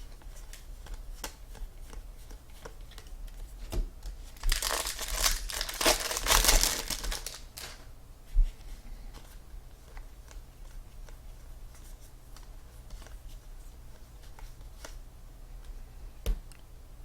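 A trading-card pack's foil wrapper crinkling and tearing as it is opened, loudest for about three seconds partway through, amid light clicks and rustles of cards being handled, with a single knock shortly after the tearing.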